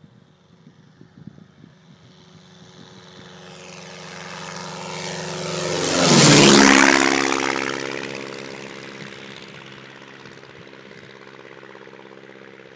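Jodel D117 light aircraft's 90 hp Continental flat-four engine and propeller in a low fly-past overhead. It grows louder over several seconds, is loudest about six seconds in as it passes directly overhead, drops sharply in pitch as it goes by, then fades away.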